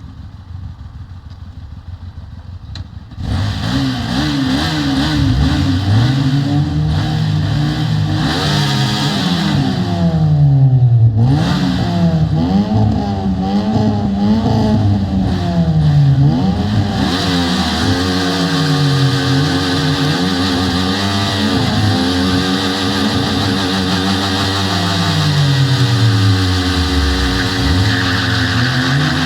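Hyosung GT250R motorcycle's 250 cc V-twin engine, quieter for the first three seconds, then loud and revving up and down over and over, its pitch rising and falling every couple of seconds.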